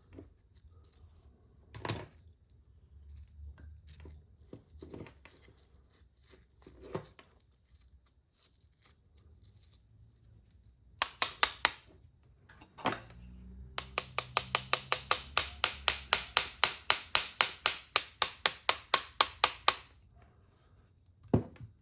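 Small metal clicks and taps from hand tools working on RC car parts, a few scattered at first, then a short quick run, then a rapid even clicking at about six clicks a second for some six seconds, like a tool ratcheting, with a low hum under it.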